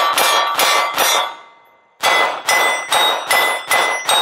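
Gen5 Glock 17 9mm pistol fired in quick succession, about two and a half shots a second, each shot followed by a short metallic ring. Three shots, a pause of about a second, then six more.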